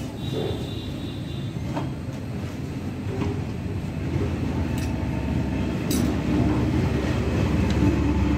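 Steady low rumble, with a few light metallic clicks as a tractor starter motor's end cover and fittings are handled.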